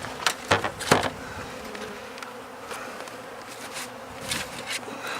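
Honey bees buzzing at a hive, with several sharp knocks and scrapes in the first second and a few more later as the wooden hive is pried open.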